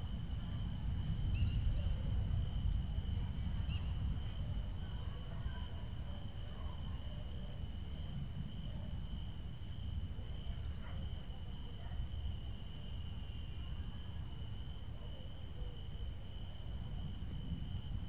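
Wind buffeting the microphone in a steady low rumble, with crickets trilling in one continuous high tone.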